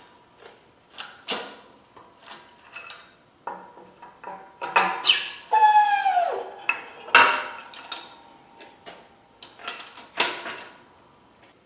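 Shop press crushing steel roll-cage tubing next to a weld: scattered metallic clicks and ticks, then, about five and a half seconds in, a loud metal squeal that falls in pitch, followed by a sharp knock.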